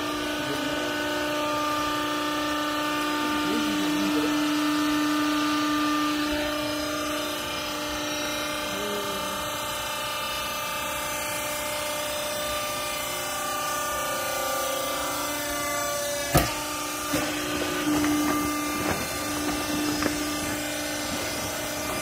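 Vertical hydraulic used-clothes baler's electric motor and hydraulic pump running with a steady hum. A sharp knock comes about sixteen seconds in, followed by a few lighter knocks.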